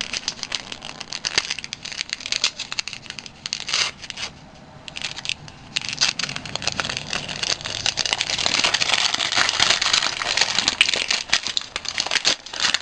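Wrapping being torn open and crinkled by hand as a small wrapped package is unwrapped: a run of crackling rustles, busier and louder in the second half.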